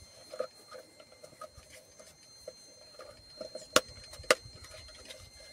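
Small plastic knocks and rustles from handling the black plastic end cap of a tractor's air-filter housing, with two sharp clicks about half a second apart a little past the middle.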